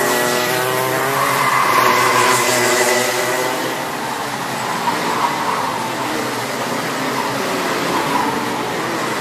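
Two-stroke Rotax race kart engines on track. One kart's high engine note fades away over the first three seconds, leaving a steady wash of more distant kart engines with further karts passing.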